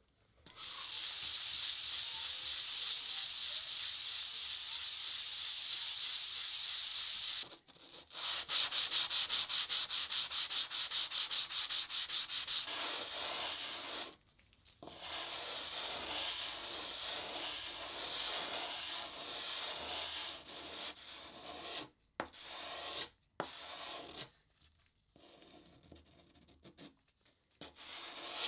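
Steel plane blade being sharpened by hand on lubricated fine-grit sandpaper, a continuous gritty scraping of rapid back-and-forth strokes. The strokes pause briefly about a third and halfway through. In the last few seconds they turn shorter and more broken.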